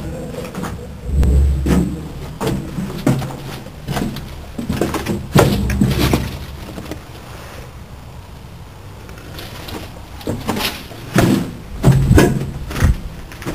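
Irregular footsteps and scuffs on a concrete floor strewn with rubble, with knocks and low rumbles from a handheld camera being carried. They are quieter for a few seconds in the middle.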